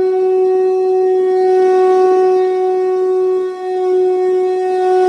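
Conch shell (shankha) blown in one long, steady note that wavers briefly midway, sounded to mark a Hindu blessing rite.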